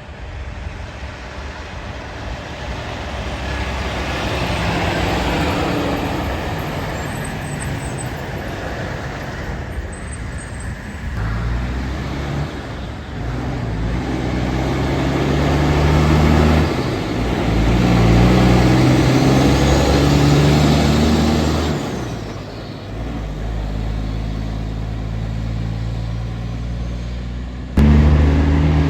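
Heavy tractor-trailer trucks passing over steady road noise, with a diesel engine pulling away whose pitch steps up and drops back several times as it shifts gears. A louder engine cuts in suddenly near the end.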